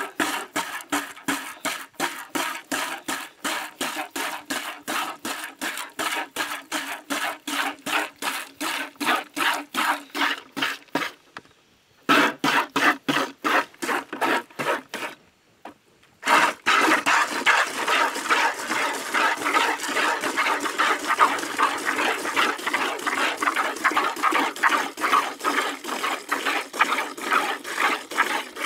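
A cow being milked by hand: quick, even squirts of milk into a container, about three a second, pausing twice briefly in the middle.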